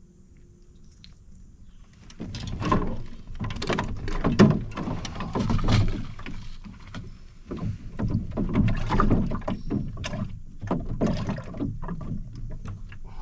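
Kayak on the water: paddle or hull splashing and water sloshing in an uneven run of bursts, starting about two seconds in.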